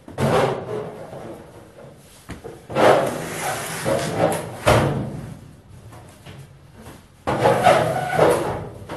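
Halves of a cut-through thin sheet-steel filing cabinet clanking and scraping as they are rocked and pulled apart, in three bursts with a sharp knock about two-thirds of the way through the middle one.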